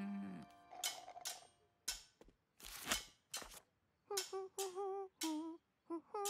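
Several sharp clicks at an uneven beat, then from about four seconds in a voice humming a tune in short, separate notes. A brief falling musical tone fades out at the very start.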